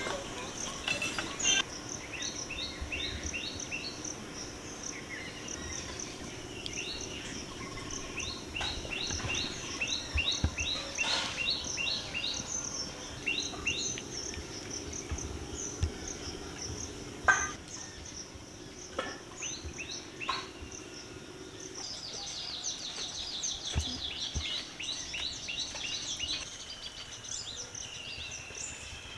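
Garden ambience: a steady high-pitched insect drone with birds chirping over it in quick repeated calls, and a few sharp knocks about two-thirds of the way in.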